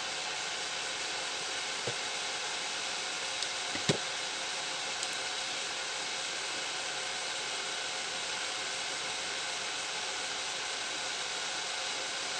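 A steady, even hiss like a fan running, with a few faint clicks and one sharper tap about four seconds in.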